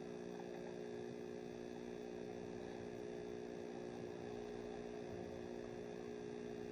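Steady faint electrical hum made of several fixed tones, with nothing else heard.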